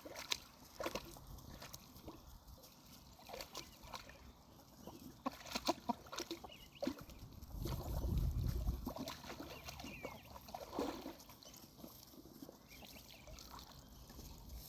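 A dog splashing in muddy pond water: faint sloshing and trickling with scattered small splashes. There is a brief low rumble around the middle.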